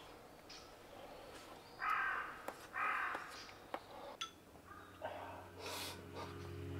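A crow cawing twice, about a second apart, with a few short clicks around the calls.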